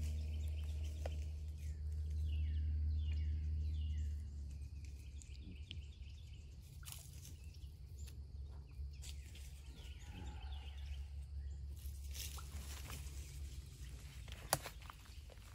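Woodland ambience: a low, steady drone that drops away after about four seconds, with birds chirping. Scattered light clicks and one sharp click come near the end.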